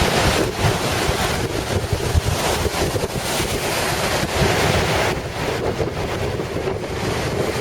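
Storm waves crashing on the Lake Superior shore in a gale, with strong wind buffeting the microphone in gusts.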